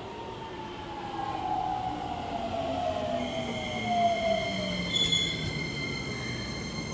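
Keikyu electric train's traction motors whining steadily down in pitch as it brakes. A high steady squeal of wheels or brakes joins about three seconds in.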